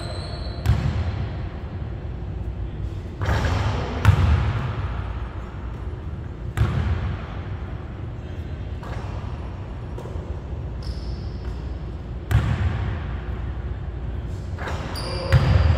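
Basketball hitting the hardwood court of a large gym: about seven separate thuds a few seconds apart, each echoing through the hall.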